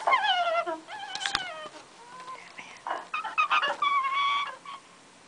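Recorded animal calls played through a laptop speaker. There are several pitched cries: two that fall in pitch in the first two seconds, then a cluster of shorter calls and one held steady cry about four seconds in.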